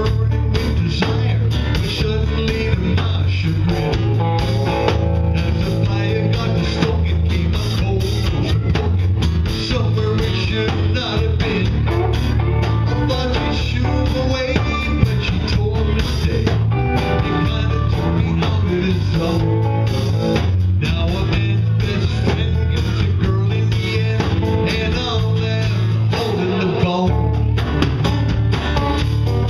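Live band playing a song: strummed acoustic guitar with electric guitar and electric bass, keeping a steady rhythm throughout.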